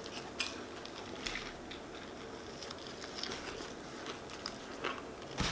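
Faint crinkling and scattered light clicks and taps of food being handled as a sandwich is put together with lettuce and tomato.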